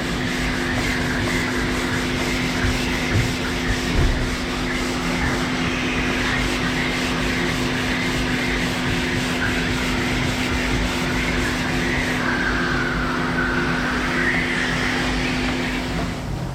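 Power sander with 120-grit paper sanding cured body filler: a steady motor hum under a rasping scrape that wavers in pitch as the pad moves across the panel, stopping just before the end.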